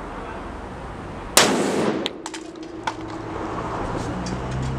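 A 2-litre plastic soda bottle bursting under air pressure from a hand pump: one sharp, loud bang about a second and a half in, followed by a few short clicks.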